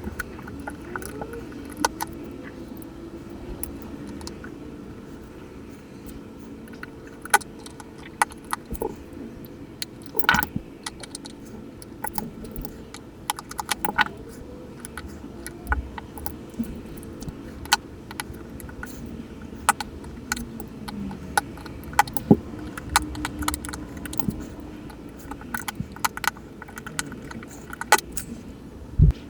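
Irregular small metallic clicks and taps of tiny parts and tools as a Casio analog wristwatch is taken apart, over a low steady background hum.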